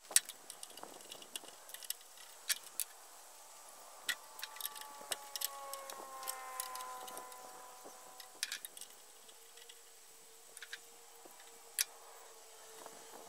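Scattered light clicks and small metallic taps of hand work on the radial arm saw's switch. From about four seconds in, a faint distant drone slowly falls in pitch, then holds steady.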